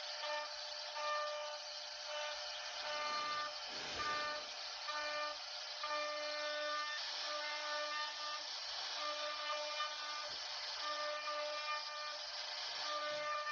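CNC router cutting wood: a steady hiss of cutting with a whine from the machine's motors that starts and stops every second or so as it moves.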